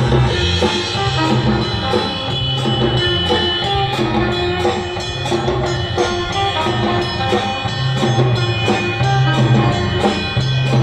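A live surf-rock band playing an instrumental: guitar over a steady drum beat.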